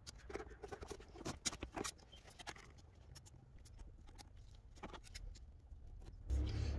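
Scattered light clicks and taps of a hand tool working on a coolant hose clamp, irregular rather than in a steady rhythm. Music comes in near the end.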